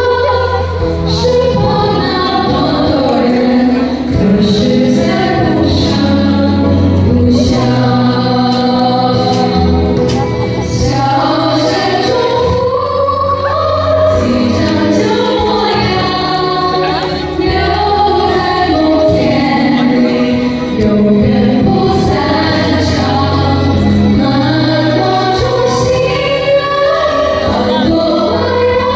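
A song with singing voices over instrumental backing with a steady bass line.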